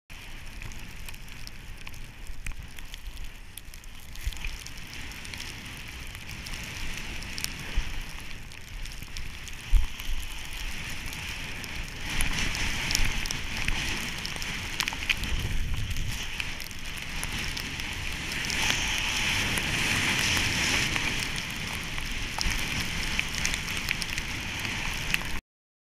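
Snowboard sliding through deep powder snow: a steady crackling hiss that grows louder about halfway through and again near the end, with one knock about ten seconds in. It cuts off abruptly at the end.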